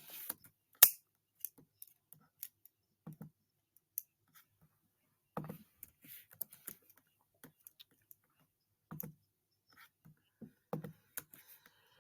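Scattered, irregular clicks and light taps in a small room, a couple of sharp ones about a second in, with a few soft low knocks among them.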